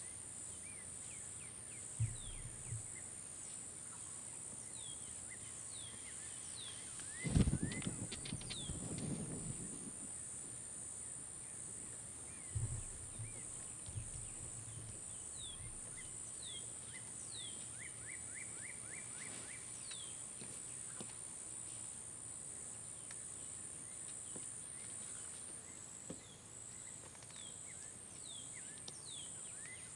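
Evening outdoor ambience: a steady high insect trill with many short, falling bird chirps throughout. A few low thumps are heard, and a louder rattling burst comes about seven seconds in, dying away over two or three seconds.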